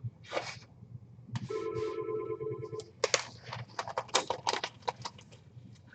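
A disposable glove being changed: a short swish near the start, then a steady tone for about a second and a half, then a run of crackling rustles and snaps of thin glove material.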